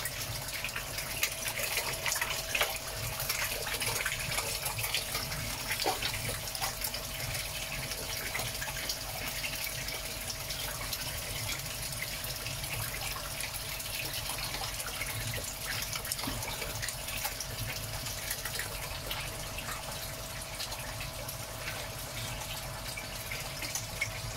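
Water pouring steadily into a koi tank from a return pipe, with splashing and slurping from koi feeding on mealworms at the surface, busiest in the first several seconds and thinning out after. A steady faint hum runs underneath.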